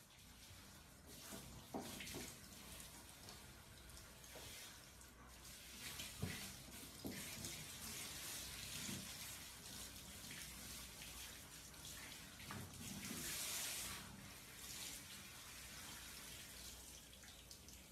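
Water spraying from a handheld shower head onto a dog's coat and the shower floor: a steady hiss that grows louder for a second or two about two-thirds of the way through.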